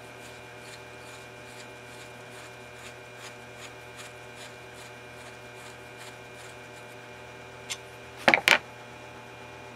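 A screwdriver faintly ticking and rubbing as it screws the main jet into a lawnmower carburettor, over a steady electrical hum. A couple of loud sharp clacks come near the end.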